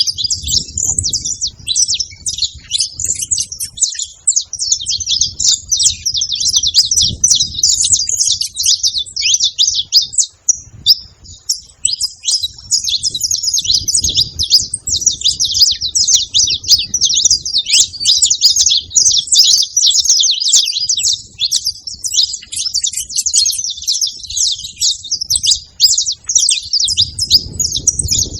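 Saffron finch chirping and singing in rapid, unbroken high-pitched runs, with a short pause about ten seconds in.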